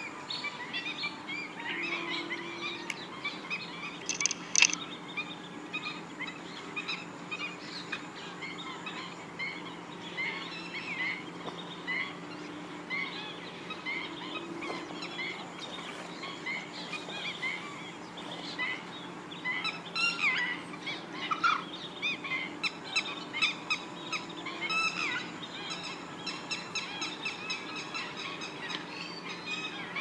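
A flock of black-winged stilts calling: a continuous chatter of many short, overlapping calls, busiest about twenty seconds in.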